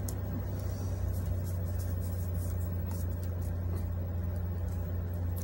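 A steady low hum throughout, with faint soft clicks and slides of Pokémon trading cards being shuffled through in the hands.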